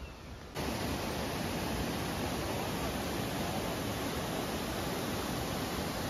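White water rushing over and between boulders in a rocky cascade, a steady loud rush that cuts in suddenly about half a second in after a fainter hiss.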